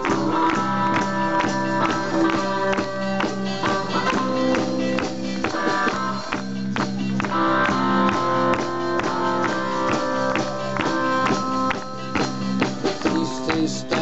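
Live rock and roll band playing an instrumental passage: electric guitars over a drum kit keeping a steady beat.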